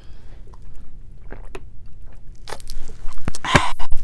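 Scattered sharp clicks, then a loud crackling crunch about three and a half seconds in, close to the microphone.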